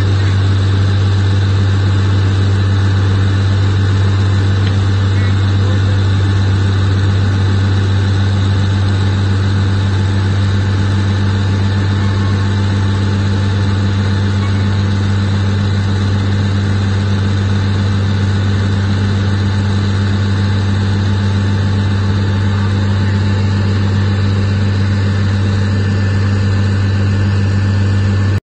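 1960s–70s tractor engine running at a steady speed, powering a forage wagon's unloading gear as it discharges chopped corn silage. A loud, unchanging low drone.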